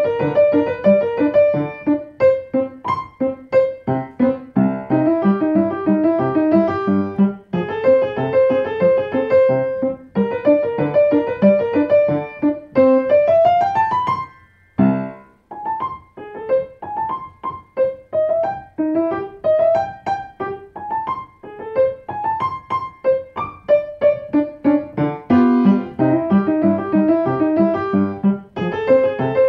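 Piano played with both hands: a graded beginner classical piece in quick, separate notes. About halfway through, an upward run of notes ends in a brief pause before the playing resumes.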